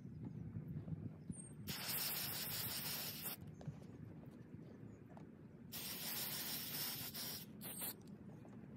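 Aerosol can of Saphir Renovateur suede conditioner spraying onto suede in two hissing bursts of about two seconds each, with a brief third puff near the end.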